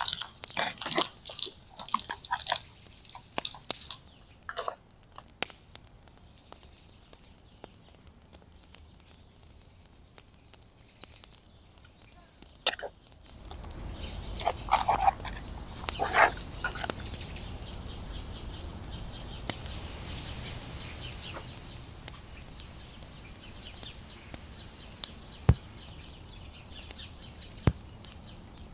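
Close crunching and clicking for the first few seconds. Then a low, steady rumble sets in about thirteen seconds in and stays, with a few louder crunches soon after.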